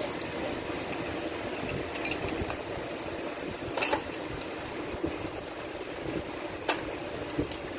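Metal hand tools and engine parts clinking as an engine is taken apart: a few sharp clinks, the loudest about four seconds in and another near the end, over steady background noise.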